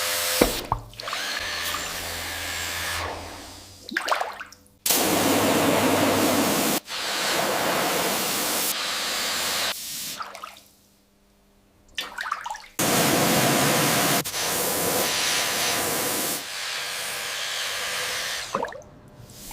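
A small power tool running in a series of short clips that start and stop abruptly, with a brief quiet gap about halfway through.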